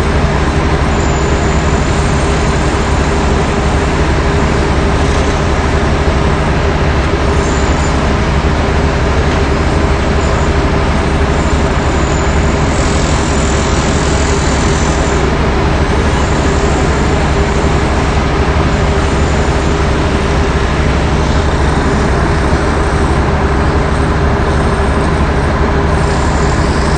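Heavy machinery's engine running at a steady pace, a loud constant drone with a low hum that does not change.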